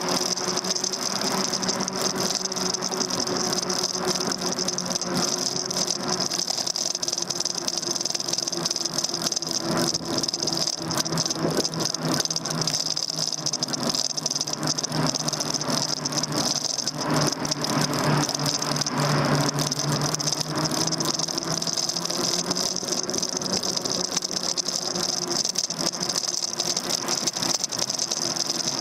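Daymak Max e-bike under way: its electric motor gives a steady hum that drifts slowly up and down in pitch with speed, and the bike rattles over the road surface throughout. This is heard through a handlebar-mounted camera.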